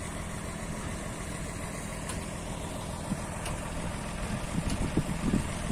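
Slipway winch engine idling with a steady low drone. Uneven louder low sounds come in over the last second or two.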